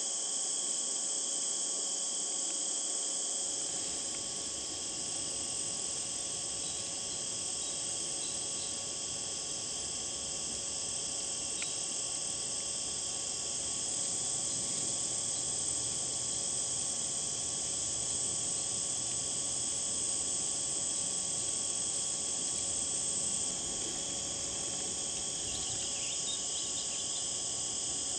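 A steady chorus of insects trilling: a dense high-pitched buzz that never breaks or changes, with fainter steady tones beneath it.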